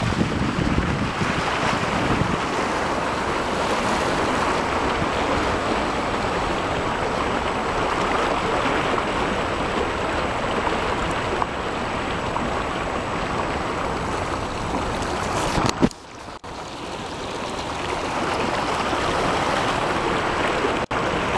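Steady rush and slosh of floodwater as a car drives slowly through a flooded road, water pushed by the tyres and against the body. The rush drops off sharply about two-thirds of the way through, then builds back up over a couple of seconds.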